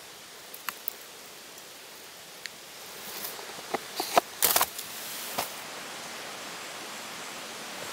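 Close handling noises: a few light clicks, then rustling and a short run of scrapes and knocks about four seconds in as a knife is pushed into its leather sheath over a wicker basket of spruce sprigs.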